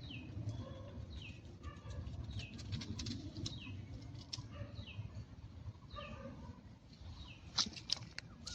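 A bird calling over and over, each call a short high note that falls in pitch, repeated a little more than once a second, over a steady low rumble. A few sharp clicks come near the end.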